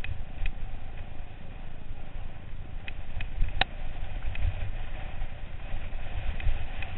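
Mountain bike rolling fast over a rough dirt track, heard as a steady low rumble of wind buffeting the ride-mounted camera's microphone, with the bike's rattle and scattered sharp clicks and knocks, the loudest about three and a half seconds in.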